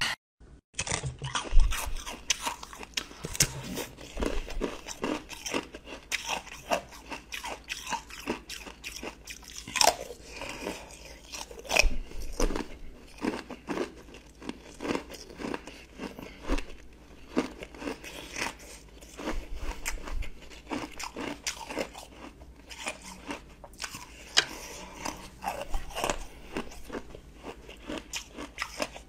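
Ice moulded into a keyboard of keycap-shaped cubes being bitten and crunched close to a microphone: a dense run of sharp cracks and crunches with chewing between them.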